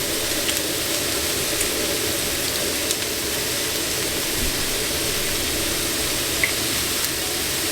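Steady sizzle of peppers and aromatics frying in a pot, with a few faint clicks.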